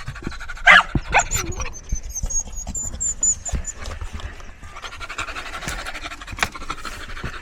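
Dogs panting after running and fetching, with a short sharp sound a little before a second in and a thin high chirping for a few seconds.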